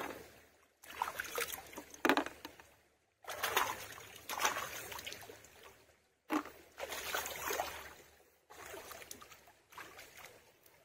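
Shallow muddy stream water splashing and sloshing in repeated bursts every second or two, each fading away, as hands scoop and feel through it for snails.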